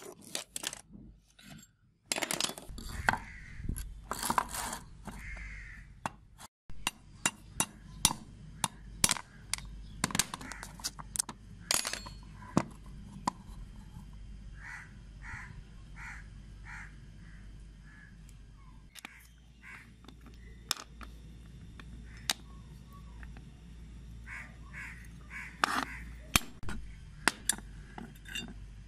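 Steel parts of a rusty pipe cutter being taken apart by hand: irregular sharp metal clinks, clicks and knocks as the pins, feed screw and cutter wheels are worked loose and set down on concrete.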